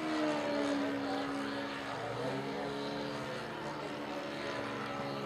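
Saito 1.20 four-stroke glow engine of a radio-controlled aerobatic model plane running in flight, a steady drone whose pitch dips slightly in the first second or so.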